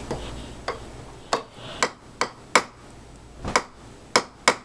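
Toy hammer tapping on a wooden cabinet: a string of sharp knocks, about nine, coming unevenly at roughly two a second.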